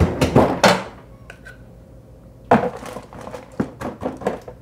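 Refrigerator freezer drawer pulled open with a few sharp knocks and clatters, then bagged plastic grinder parts set down inside it with a sharp knock and a run of lighter clicks and knocks.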